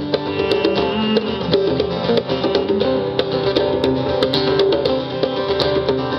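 Acoustic guitars playing an instrumental passage of a folk song, plucked notes over sustained chords, with no singing.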